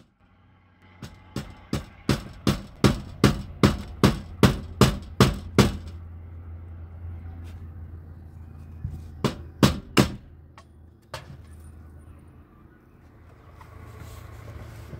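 Hammer driving nails into a plywood wall panel: a quick, even run of about a dozen blows, growing louder, then two more blows near ten seconds and a single one a second later, over a faint steady low hum.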